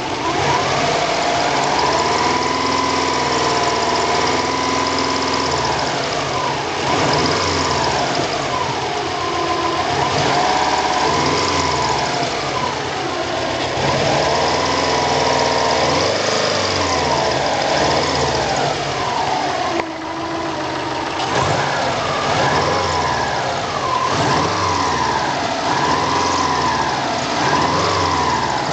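Turbocharged Subaru 2.5/2.0 hybrid flat-four engine running, its pitch rising and falling every few seconds as it is revved and let back down. A noise in it worries the owner; he was trying to capture a different noise from the turbo area.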